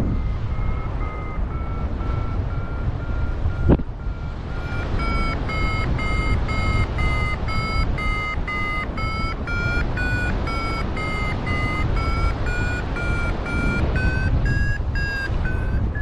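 Paragliding variometer giving its climb tone: quick repeated beeps, about two to three a second, that grow louder about four seconds in and drift up in pitch as the lift strengthens, signalling a climb in a thermal. Steady wind noise on the microphone runs underneath, with a single knock about four seconds in.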